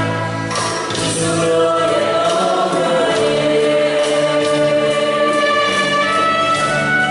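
A group singing a gospel hymn with music, long held notes that change pitch every second or so.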